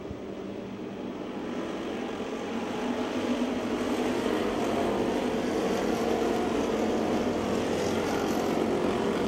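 Several stock-car engines racing together in a pack, a dense engine drone that swells louder over the first three seconds and then holds steady.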